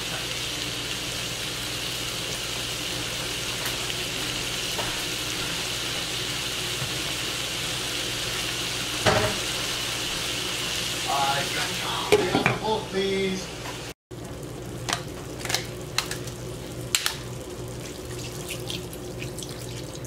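Pork chops with garlic and onion frying in a non-stick pan: a steady sizzling hiss with a few brief knocks. About 14 s in, after a cut, the sizzle is quieter, with scattered sharp pops and crackles.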